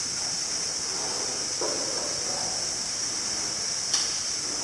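A steady high-pitched hiss, with a brief fainter sound about a second and a half in and a sharp click near the end.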